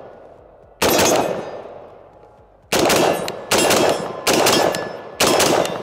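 Daniel Defense DD4 M4A1 RIII 5.56 AR-15 firing five single shots at steel plate targets, each shot followed by a ringing tail. There is one shot about a second in, then after a pause four more come in quicker succession, a little under a second apart.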